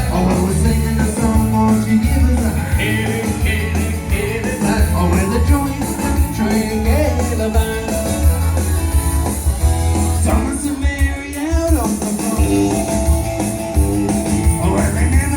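Country band playing live: an up-tempo number carried by bass guitar and guitars, with some singing.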